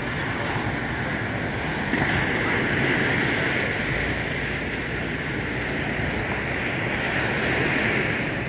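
Ocean surf washing and breaking on the shore, a steady rush that swells about two seconds in, with wind on the microphone.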